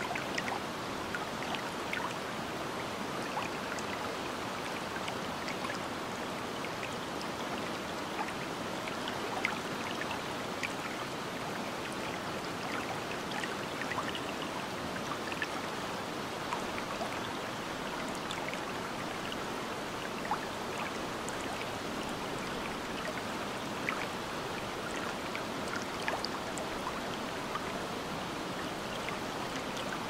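Steady rush of water from a waterfall and its river, with small splashes and drips ticking over it here and there.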